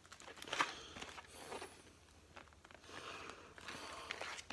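Faint rustling, scraping and light clicks of a plastic VHS tape case being handled and turned over in the hands.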